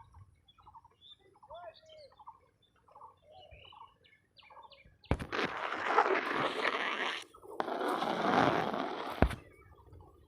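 Birds chirping faintly with short scattered calls, then two loud bursts of rushing noise of about two seconds each, ending in a sharp click.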